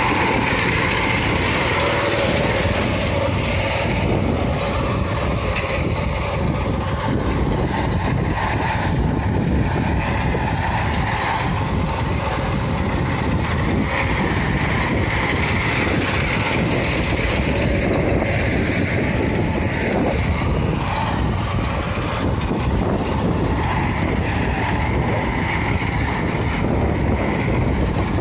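Small engine of a walk-behind paddy reaper running steadily while its cutter bar mows standing rice.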